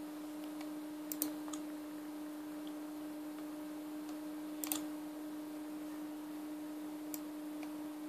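Sharp mouse-button clicks on an ASUS Eee PC 900 netbook: two close together about a second in, another pair near the middle and a single click near the end, over a steady low hum.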